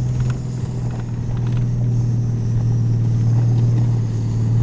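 Jeep engine running with a steady low drone, getting slightly louder.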